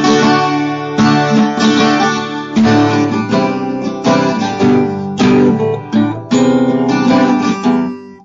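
Twelve-string acoustic guitar strumming chords in a steady rhythm, the sound dying away just before the end.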